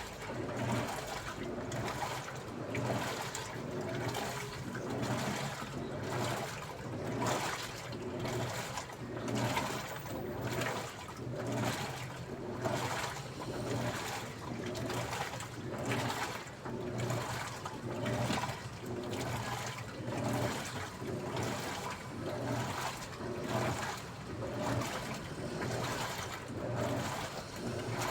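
Daewoo washing machine running a wash cycle: water sloshing in the drum in an even rhythm, about one surge a second, over a steady low hum.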